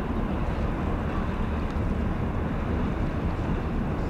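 Steady low drone of the passing container ship Pantonio's engines, with wind rumbling on the microphone.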